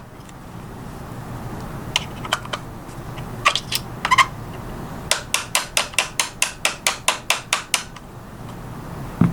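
Small hammer tapping a pin punch to drive the IWI Tavor's magazine catch pin back in and seat it until its notch is engaged by the spring. A few scattered light taps, then a quick, even run of about five taps a second lasting nearly three seconds.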